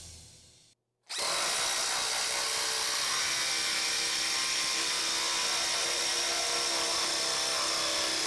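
DeWALT DCF887 20V brushless impact driver hammering a half-inch by eight-inch lag screw into stacked lumber under steady load, starting about a second in. The run is sped up, so the impacts blend into one steady buzz.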